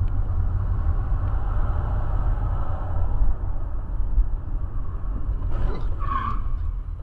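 Steady low rumble of a car's engine and tyres on the road, heard from inside the cabin through a dashcam microphone. About five and a half seconds in there is a short noisy sound, and just after it a brief higher-pitched tone.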